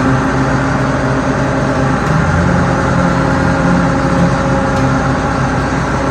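Large farm machine's engine running steadily with a constant drone, its low hum swelling and easing slightly every second or so.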